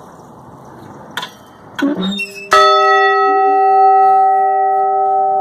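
A 30-inch cast iron church bell struck once, about halfway through, after a couple of faint knocks; it rings on with several overlapping tones that die away slowly.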